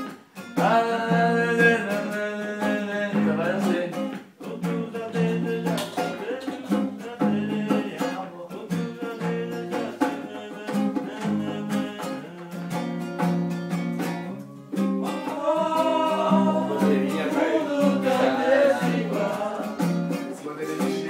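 Acoustic guitar strummed in a steady rhythm, with a man singing along in a couple of stretches, at the start and again from about two thirds of the way through.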